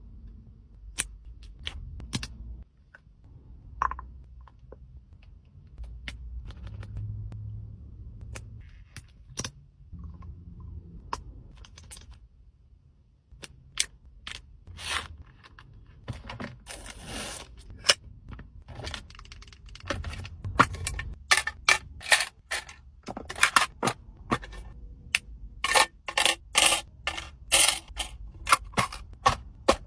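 Small hard objects clicked, tapped and set down one after another, with a few short stretches of scraping or rustling; the taps come thick and fast in the second half.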